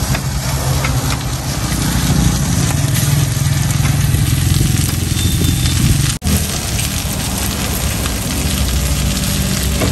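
Flat rice noodles and bean sprouts sizzling in a hot wok over a charcoal fire, a steady dense hiss with a low hum underneath. The sound briefly cuts out about six seconds in.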